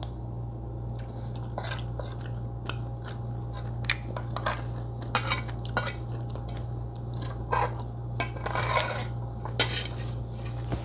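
Metal spoon clinking and scraping against a soup bowl while eating, in scattered short clinks.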